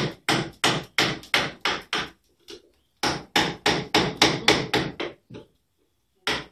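Mallet blows driving a curved carving gouge into wood, about three sharp strikes a second, in two runs broken by a pause about two seconds in and another near the end. The gouge is cutting the hollow between the claws of a ball-and-claw foot.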